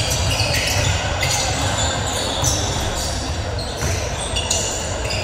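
Basketball game sounds: a basketball bouncing on an indoor court, with many short high squeaks, typical of sneakers on the floor, and faint voices in the background.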